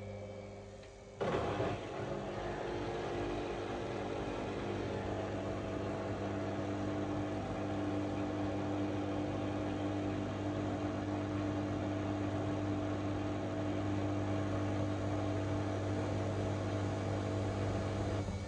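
Washing machine running with a steady, even-pitched hum, the drum wobbling and vibrating; it comes in suddenly about a second in.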